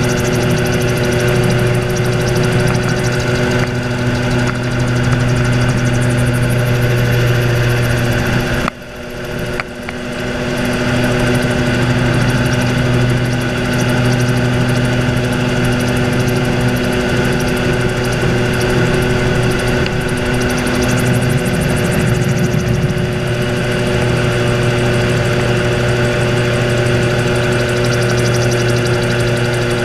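Gyrocopter engine and propeller running steadily in flight, heard from the open cockpit, with a steady engine drone throughout. The sound dips sharply for a moment about nine seconds in, then comes back.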